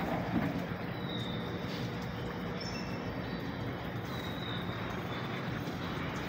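A machine running with a steady low hum, with a few faint short high chirps over it.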